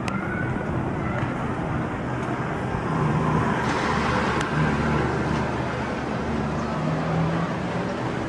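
City street traffic: motor vehicle engines running and passing, a steady hum that swells a little midway.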